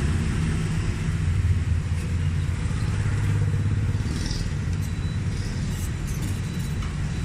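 Steady low rumble of background road traffic, with no welding arc heard.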